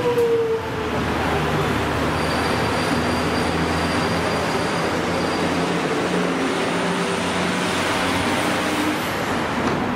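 X'Trapolis electric train running slowly along the station platform: a motor whine falls in pitch and ends about half a second in, then a steady low hum and wheel noise, with faint high tones in the middle.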